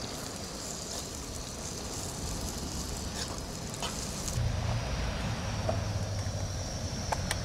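Sliced onions sizzling in hot coconut oil in a frying pan, a steady hiss, with a few faint clicks. About four seconds in, the highest part of the hiss eases and a low steady rumble comes in under it.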